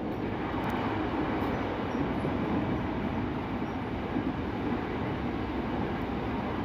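Steady running rumble of a KRL Commuter Line electric train rolling along the track, heard from inside the passenger car.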